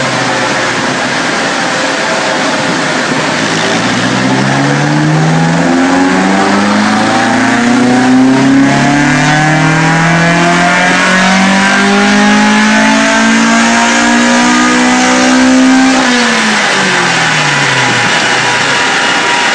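Ford Escort RS2000's 16-valve four-cylinder engine on individual GSXR motorcycle throttle bodies, pulling under load on a rolling road. The revs climb steadily for about twelve seconds to near the limiter, then fall away quickly when the throttle is shut near the end.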